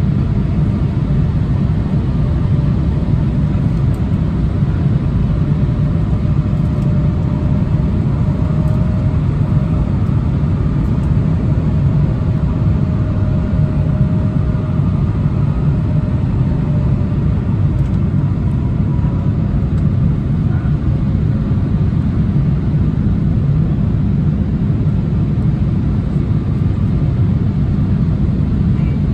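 Cabin noise inside an Embraer 175 jet airliner in flight: a steady low rumble of airflow and its GE CF34 turbofan engines, with a faint engine whine that wavers slightly in pitch.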